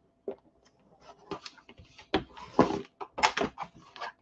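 Heavy cardstock being folded backwards and handled, a series of short, sharp paper rustles and crackles.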